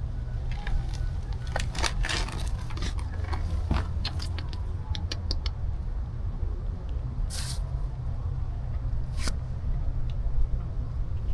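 Steady low rumble, with scattered small clicks and rustles in the first few seconds, a short hiss about seven seconds in and one sharp click a couple of seconds later.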